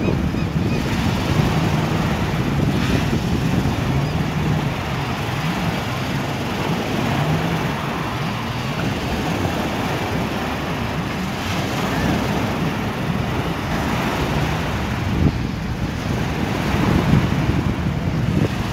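Jet ski engine running offshore, its note rising and falling, over a steady wash of surf and wind on the microphone.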